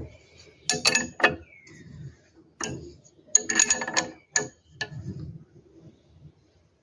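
Steel ring spanner clinking against a brass tap's headgear nut as the headgear is tightened back into the tap body: a series of sharp metallic clicks, with a quick cluster of them about halfway through.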